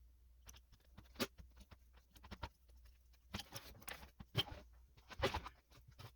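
Irregular clicks, knocks and short scrapes of metal parts and hand tools being handled during work on an A/C compressor clutch, the loudest knocks about four and five seconds in.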